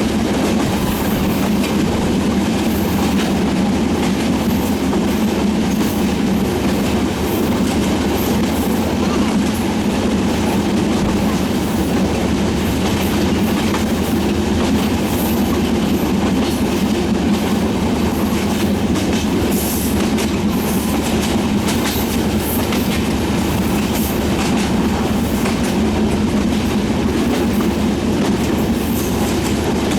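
Passenger train coaches rolling at steady speed across a rail bridge: a continuous heavy rumble with the clickety-clack of wheels over rail joints.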